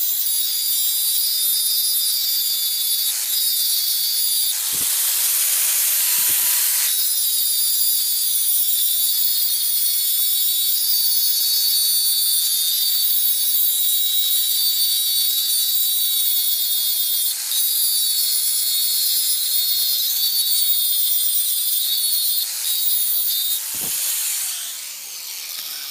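An electric power tool running with a steady whine as it abrades a workpiece. About five seconds in it turns harsher and louder for a couple of seconds. Near the end it is switched off and its pitch falls as the motor winds down.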